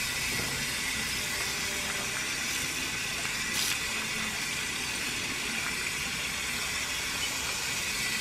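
Water running from an outdoor tap onto hair and concrete during a hair rinse: a steady, even hiss of falling water.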